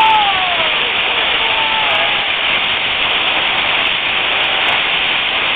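Steady rushing hiss of water and wind on a moving boat. A falling voice-like exclamation comes right at the start, and a fainter one about two seconds in.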